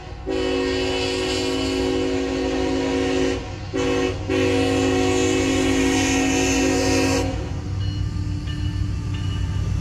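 CSX diesel freight locomotive's multi-chime air horn: a long blast, a short one, then another long one, the end of a grade-crossing warning. After the horn the locomotive's low rumble carries on as the train approaches.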